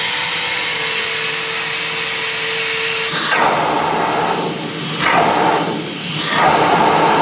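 Rotovac Monsoon ZX portable carpet extractor's vacuum motors running with a steady whine. About three seconds in, the sound changes, then drops twice and surges back as switches on its control panel are worked.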